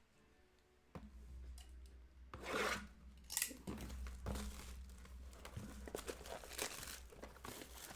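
Plastic or foil card-pack wrapping being torn open and crinkled by hand, with light clicks and rustles of handling; the loudest tears come about two and a half and three and a half seconds in.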